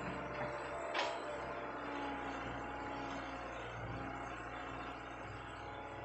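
Excavator engine running steadily with a low, even hum. A single sharp click sounds about a second in.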